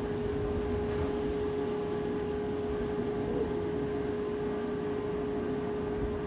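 Strong storm wind over a choppy lagoon: a steady rushing noise with a steady low hum running through it.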